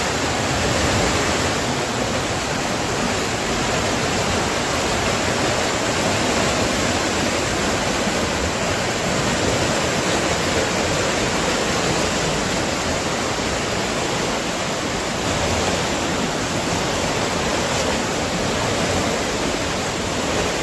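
Fast-flowing floodwater rushing past, a loud steady noise with no change.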